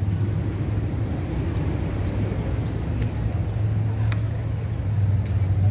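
Steady low rumble of road traffic, with a few light ticks about three, four and five seconds in.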